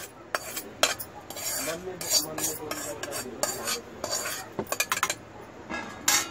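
Metal spoon scraping and tapping against a steel pan, pushing a cooked chilli, garlic and peanut mixture out into a stainless-steel mixer jar: irregular clinks and short scrapes.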